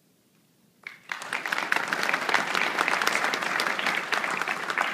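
Audience applauding at the end of a talk: after a near-silent first second, many people start clapping together and keep up a steady round of applause.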